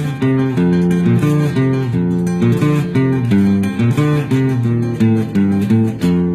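Acoustic guitar playing an instrumental passage between sung verses: plucked notes changing quickly over a moving bass line.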